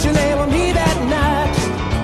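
Background music: a song with a steady beat and a wavering melody line.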